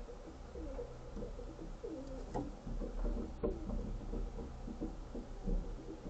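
Rock pigeons cooing: a run of low coos, one after another.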